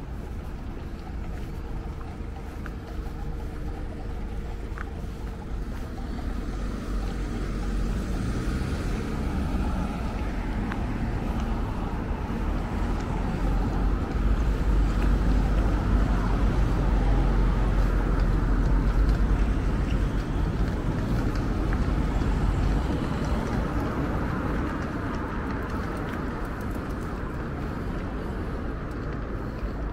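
Road traffic: a motor vehicle's engine and tyres growing louder, passing at its closest about halfway through, then fading away.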